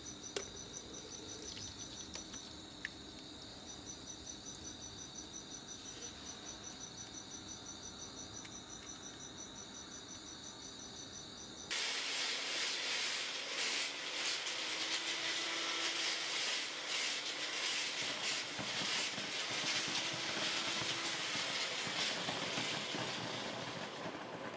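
Crickets chirping, a steady high trill pulsing several times a second. About halfway through this gives way to a louder rushing hiss and crackle as molten metal is poured from a crucible into a plaster investment mold and burns out the wax inside.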